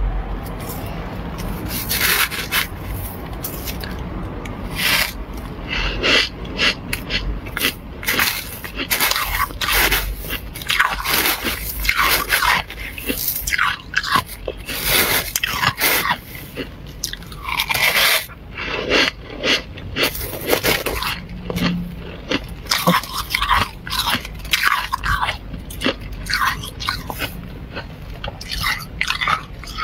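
Flaky freezer frost crunching as it is bitten and chewed, with some scraping: a long irregular run of crisp crunches.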